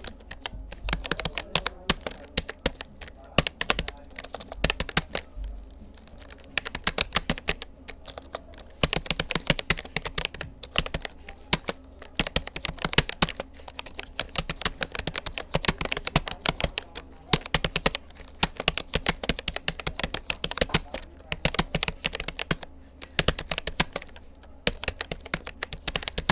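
Steady touch-typing on a Rapoo computer keyboard: a dense, irregular run of key clicks with a few short pauses.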